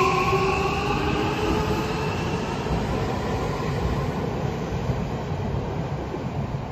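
Odakyu electric train (3000 and 1000 series sets coupled) pulling out and moving away. A rising whine from the motors fades in the first second or so, and the rumble of the wheels on the rails then slowly dies away.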